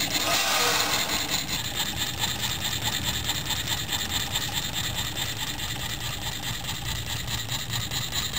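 Small homemade Stirling engine running under spirit-lamp heat, its crank, connecting rods and disc flywheel making a steady, rapid, even clatter. There is a brief hiss near the start.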